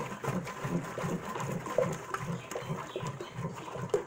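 Liquid sloshing in an enamel pot as a plastic ladle stirs sugar into hibiscus-and-strawberry water, in even strokes about three times a second, with a few light knocks of the ladle against the pot.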